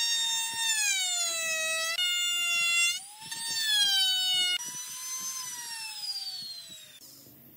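Handheld trim router running with a high whine as its bit cuts a groove into a wooden disc, the pitch sagging under the cutting load and rising again. Near the end the pitch falls steadily and the sound dies away.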